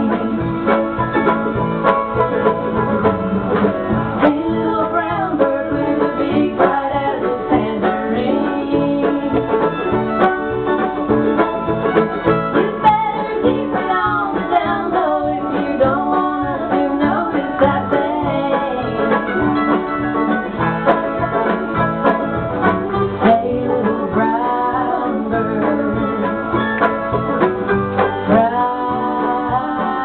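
Live acoustic string band playing a bluegrass-style tune, with banjo and guitar driving a steady plucked rhythm under a melody line that slides in pitch.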